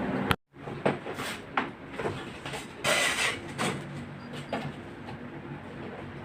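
Several separate knocks and clunks, with a short scraping rattle about three seconds in, over a faint steady hum.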